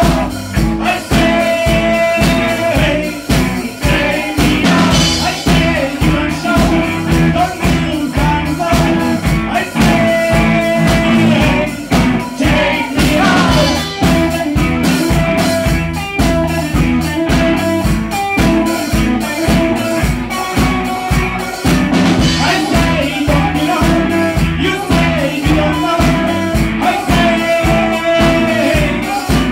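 Rock band playing a song: singing over electric guitar and a drum kit keeping a steady, driving beat.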